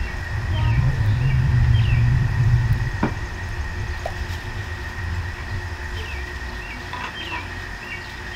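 Low rumble of a passing vehicle, swelling to its loudest a second or two in and then fading away. Birds chirp short calls in two brief clusters over a steady high whine.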